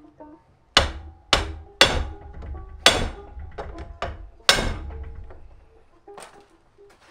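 Hammer blows driving the steering shaft out of a Prius electric power steering assist column: five heavy strikes in the first five seconds, with a few lighter taps between and after, each leaving a brief metallic ring.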